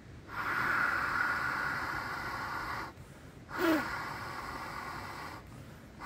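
Mouth-inflating a Doite Eagle XP inflatable sleeping pad through its valve: a long blow of about two and a half seconds, a quick sharp breath drawn in about three and a half seconds in, then a second, quieter blow.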